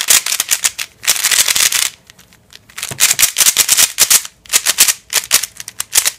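A new 3x3 speed cube being turned fast by hand on its first turns out of the box. Its plastic layers click and rattle in quick bursts, with a short pause about two seconds in.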